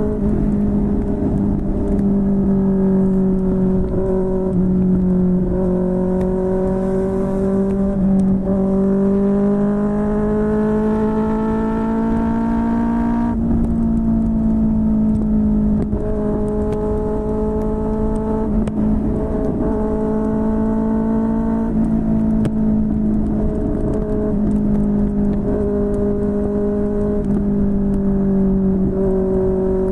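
QJMotor SRK600's inline-four engine through a Yoshimura R11 exhaust, pulling at steady mid revs. Its pitch climbs for several seconds and drops sharply about thirteen seconds in, with smaller rises and dips along the way, over a steady rush of wind and road noise.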